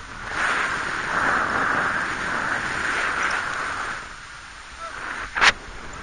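Wind rushing over a paraglider pilot's microphone in flight, loud for about four seconds and then easing off, with a single sharp click about five and a half seconds in.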